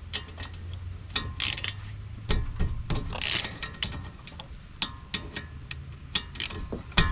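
Ratchet wrench with a 14 mm socket clicking in short runs, with metallic clinks between, as the bolts on the front brake caliper are broken loose and turned out.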